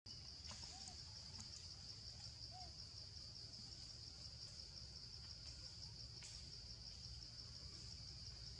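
Faint steady shrill of insects, a continuous high-pitched buzz, with two brief faint chirps about one and two and a half seconds in.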